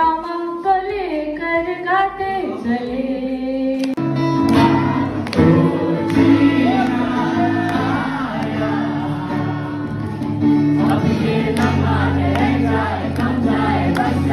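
A woman sings solo through a microphone. About four seconds in it changes to a group of voices singing together over music with sustained low notes.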